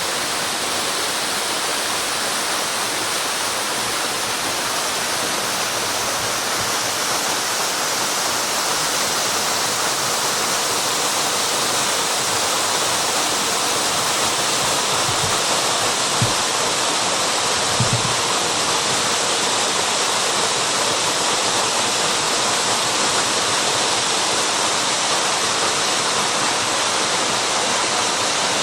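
Waterfall: a steady rush of falling water, with two brief low thumps a little past the middle.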